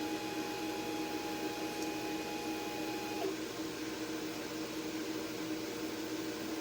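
Craft cutting machine running with a steady motor hum and a higher whine; the whine stops abruptly about three seconds in while the hum carries on.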